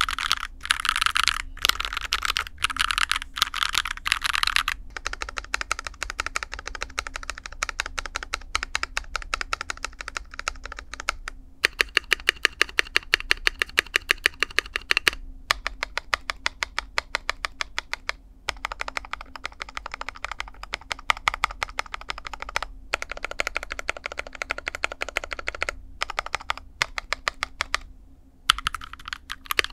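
Mechanical keyboard typing on a Rexus Daxa M61 aluminium-case board with lubed KTT Rose linear switches and cherry-profile keycaps: fast, continuous keystrokes broken by a few short pauses. In the middle comes a run of quick, evenly spaced taps on the spacebar.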